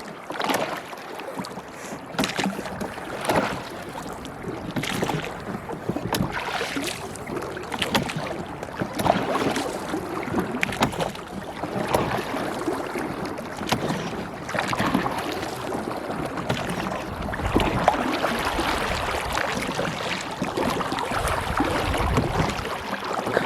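Wooden oars of a rowing boat dipping and pulling through lake water, a splash and swirl with each stroke about every one to two seconds, with water lapping against the hull.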